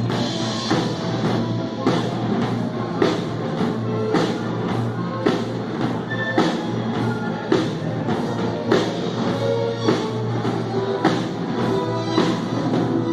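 Rock band playing, with the drum kit prominent: a steady beat with a strong drum hit about once a second and lighter hits between.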